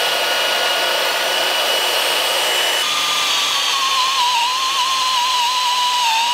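Handheld electric drill with a step bit cutting a hole through a steel L-bracket: a steady motor whine that drops in pitch and wavers about three seconds in as the bit works through the metal.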